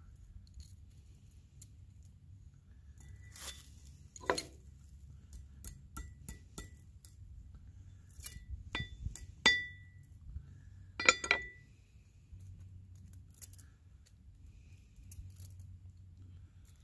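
Copper penannular cloak pin clinking as it is worked through a wool blanket and fastened, the pin knocking and sliding against the ring: a scatter of light metallic clicks with a few louder, briefly ringing clinks past the middle.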